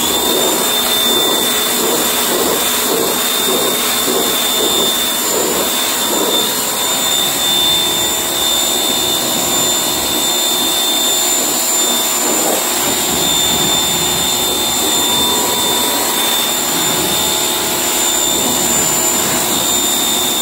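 Electric pressure washer running and spraying water onto a car's body panels: a steady high whine with the hiss of the spray.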